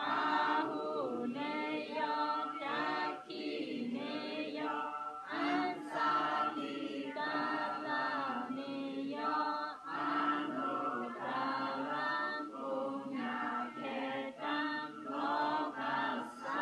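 A group of women and men chanting Buddhist prayers in unison, moving syllable by syllable at an even pace.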